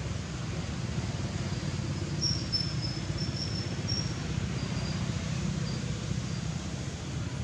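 Steady low outdoor rumble, with a run of short, high, thin chirps about two to four seconds in.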